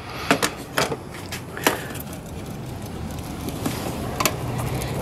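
Sharp plastic clicks and taps from a flat-blade screwdriver prying at the locking clips of a Toyota Celica's ECU wiring connectors. Three clicks come in the first two seconds and one more about four seconds in.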